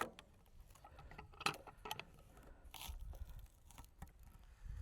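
A few light, scattered clicks and knocks, the loudest about one and a half seconds in: 2-inch PVC pipe sleeves being handled and slid over the steel log stops of a manual sawmill.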